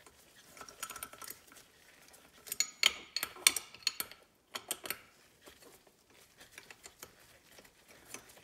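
Scattered small metal clicks and clinks from a factory Mustang shift lever assembly being handled while its retaining-plate bolts are worked loose by hand, the busiest run about three seconds in.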